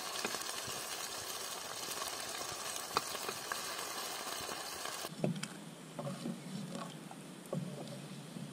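Potato chips deep-frying in hot oil in a pot over a wood fire: a steady sizzle with a wooden spatula stirring and clicking against the pot. About five seconds in the sizzle drops to a quieter sound with occasional knocks of the spatula.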